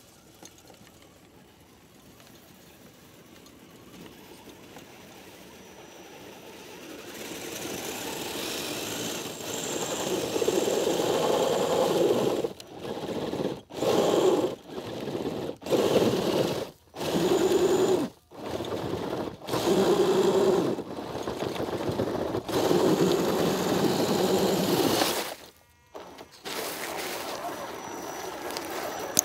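RC rock crawler's dual brushed electric motors and geared drivetrain whining. It is faint at first and grows louder as the truck comes closer, then runs in short throttle bursts broken by brief cut-offs about once a second.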